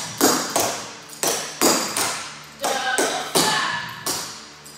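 Clogging shoe taps striking the floor in a practice step, about ten sharp metallic strikes in an uneven rhythm, each ringing briefly.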